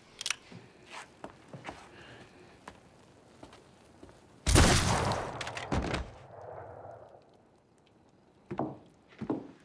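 A single revolver gunshot, sudden and loud about four and a half seconds in, ringing on for a second or so. Faint scattered knocks come before it, and a couple of dull thuds near the end.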